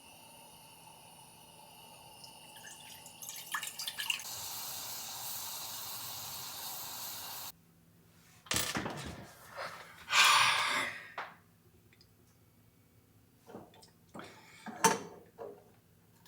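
Liquid pouring steadily for a few seconds, then cut off abruptly, followed by a few brief handling noises.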